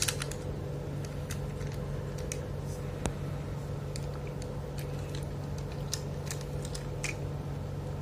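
Scattered small clicks and taps from the joints and metal parts of a 1/9-scale diecast action figure being moved and posed by hand, over a steady low hum.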